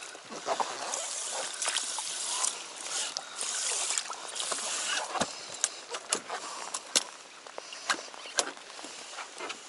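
Water sloshing and splashing in a plastic cooler used as a livewell as a bass is lowered in by hand in a mesh net, followed in the second half by a string of sharp knocks as the plastic lid is handled and shut. Rain patters on the water throughout.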